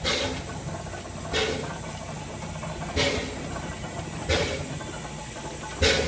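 Climax geared steam locomotive No. 1694 moving slowly, its exhaust giving five chuffs about one every second and a half over a steady low rumble.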